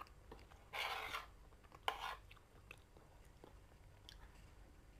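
Quiet eating sounds: a metal spoon and fork scrape twice on a ceramic plate while scooping rice, about a second and two seconds in, among faint clicks of cutlery and chewing.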